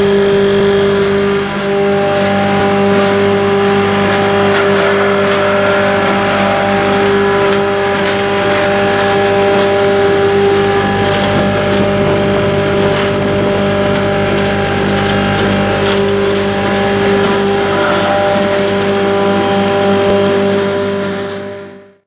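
Industrial straw-shredding plant running: its electric motors, shredder drum and fan make a loud, steady machine hum with a strong low drone and a higher whine over it. It fades out near the end.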